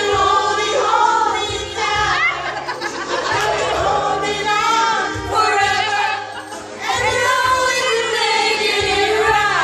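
Several voices singing a song together.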